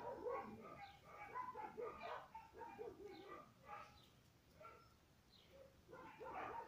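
A dog barking faintly in short, irregular calls, with birds calling, quieter for a couple of seconds near the end.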